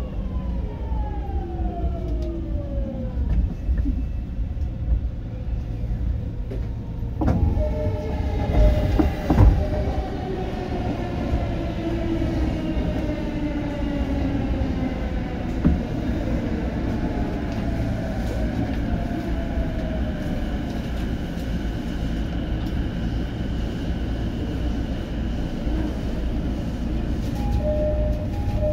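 Interior running noise of a 209 series EMU: a steady low rumble from wheels and track, with the GTO-VVVF inverter and traction motor whine in several tones gliding steadily down in pitch. A few knocks from rail joints come between about 7 and 10 seconds in.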